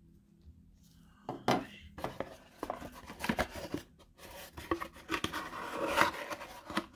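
Hands in nitrile gloves handling a cardboard box with a card insert and a plastic smart plug: a run of irregular taps, scrapes and rustles that starts about a second in.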